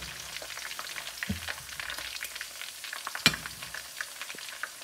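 Chicken gizzards sizzling and crackling in hot oil in a wok, with a slotted spatula stirring and knocking against the pan, one sharp knock about three seconds in.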